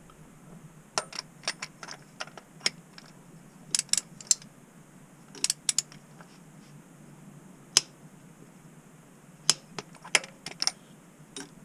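A torque wrench ratcheting on a knock sensor bolt: short runs of sharp metallic clicks, a few at a time, with pauses between as the handle is swung back and pulled again to tighten the sensor to torque.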